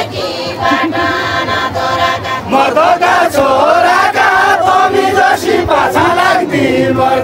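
A crowd of voices chanting together in long, sliding sung notes.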